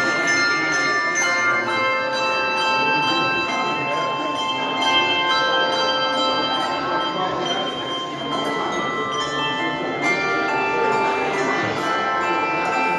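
Handbell choir playing: many bells struck in turn and left to ring, their notes overlapping in a sustained chord-like wash.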